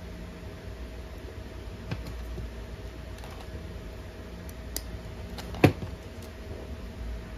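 A few light clicks and taps from a small plastic hand tool being handled, the loudest about five and a half seconds in, over a steady faint hum.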